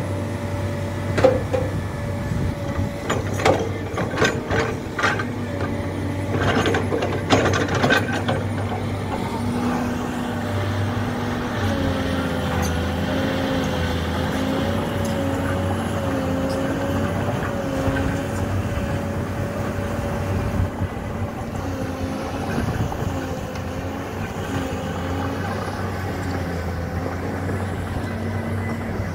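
Hydraulic excavator working: its diesel engine runs steadily, with a run of sharp clanks and knocks over the first several seconds, and a wavering whine that rises and falls from about twelve seconds in.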